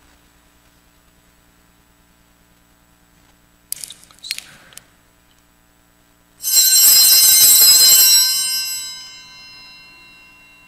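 Small altar bells shaken about six and a half seconds in, a bright cluster of ringing that holds for about two seconds and then dies away slowly. A few light metallic clinks come a couple of seconds before.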